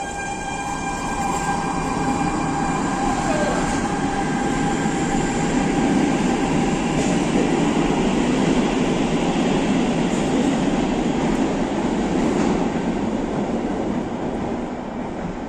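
Barcelona Metro Line 1 train pulling out of an underground station. A steady motor whine in the first few seconds gives way to wheel and track rumble that swells as the train gathers speed, then fades as it runs off into the tunnel.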